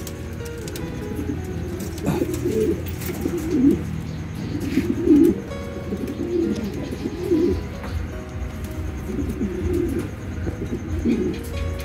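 Domestic King pigeons cooing in their loft: low, throaty coos repeated every second or so, starting about two seconds in.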